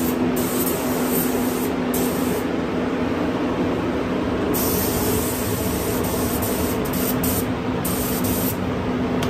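Gravity-fed HVLP spray gun hissing as it sprays epoxy primer, the hiss cutting in and out with each trigger pull. Under it runs the steady hum of the paint booth's air system.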